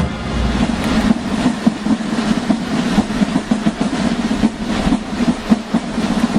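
Marching band drumline playing a fast, dense cadence of rapid drum strokes.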